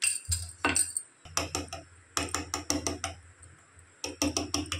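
A metal fork tapping against a stone countertop in quick irregular runs of clicks as it pricks holes in rolled mathri dough.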